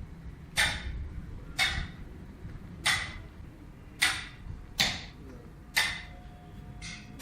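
Hammer blows on metal, seven sharp strikes about a second apart, each with a brief metallic ring.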